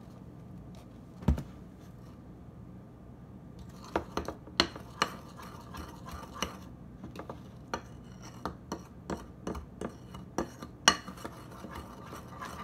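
A utensil clinking and tapping irregularly against a bowl as a conditioner and baking soda slime mixture is stirred, after a single knock about a second in.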